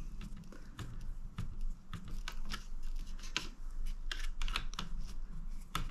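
Small self-tapping screw being driven by hand with a screwdriver into the plastic frame of a Heki Mini rooflight blind, threading into a small pilot hole: a run of irregular clicks and ticks.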